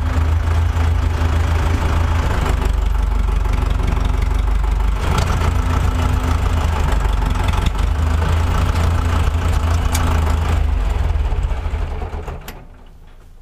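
Tractor diesel engine running steadily at low speed, a deep rumble. It dies away about twelve seconds in.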